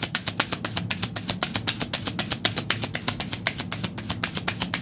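A deck of cards shuffled by hand, a quick, even run of card-edge clicks about eight a second, over soft background music.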